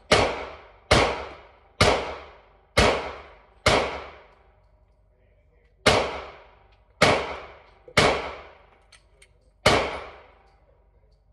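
Nine single gunshots at an indoor range, about a second apart with a pause of about two seconds after the fifth, each ringing off in the booth. Two faint clicks come shortly before the last shot.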